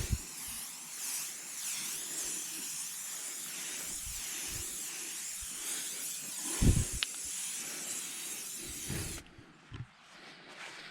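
Aerosol can of Maxima SC1 detailer spraying in a long steady hiss that cuts off about nine seconds in, with a low thump about two-thirds of the way through.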